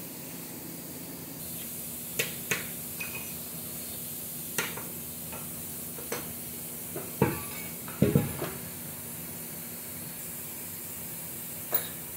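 Metal hand tools and bolts clinking and knocking against a Toyota Hilux engine block during disassembly: scattered sharp clinks, loudest in a cluster about seven to eight seconds in, over a steady hiss and low hum.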